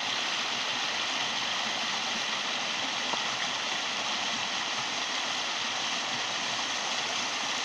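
Small creek running over rocks, a steady rush of water.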